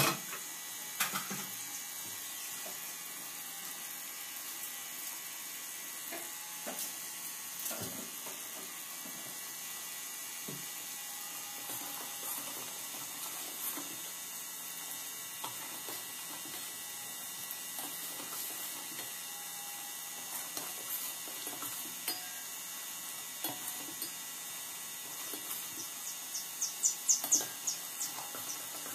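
Steel ladle scraping and clinking against a stainless steel pot as sugar syrup boils for zarda, over a steady hiss. A quick run of sharp clinks comes near the end.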